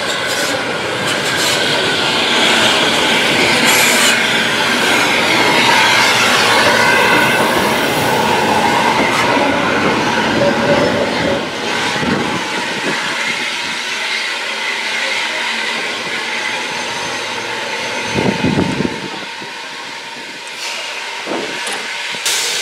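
Passenger coaches of a heritage steam train rolling past at close range, their wheels clattering over the rail joints with some wheel squeal. The sound is loudest in the first half and eases off after about twelve seconds.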